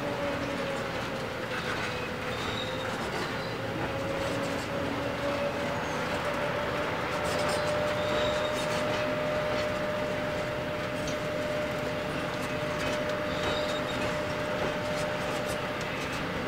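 Narrow-gauge grain hopper wagons rolling past, the wheels rumbling and clicking on the rails, with a steady high whine that dips slightly in pitch about two seconds in.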